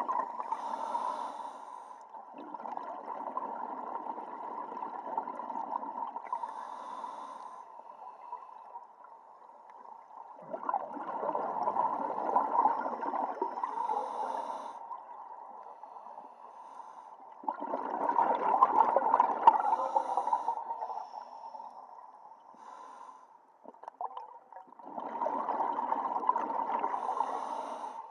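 Scuba diver breathing through a regulator underwater: about four slow breaths, each a few seconds of rushing bubbles and hiss, six to seven seconds apart.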